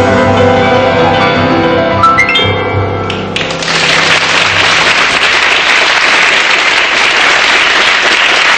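Instrumental background music that stops about three seconds in, followed by steady applause.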